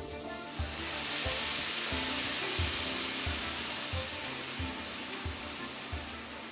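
Thin fritter batter frying in a pan of hot oil: a loud, dense sizzle that swells about half a second in and then slowly eases.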